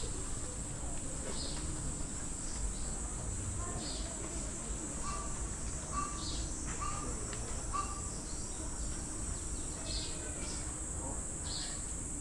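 Steady high-pitched insect shrilling, with short high bird chirps every second or two. Around the middle there is a run of four short whistled notes.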